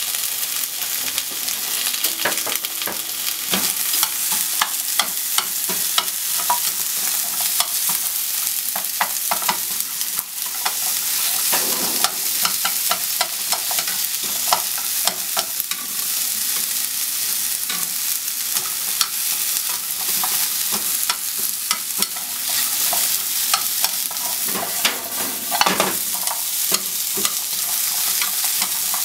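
Sliced onions sizzling in a hot nonstick frying pan while wooden chopsticks stir them, tapping and scraping against the pan many times.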